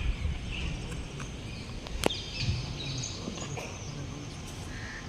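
Quiet open-air ambience with birds chirping intermittently, and a single sharp click about two seconds in.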